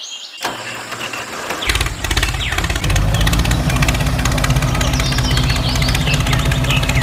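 An engine starts about a second and a half in and then runs steadily at idle with a low, fast, even chugging, as for the miniature toy tractor; birds chirp over it.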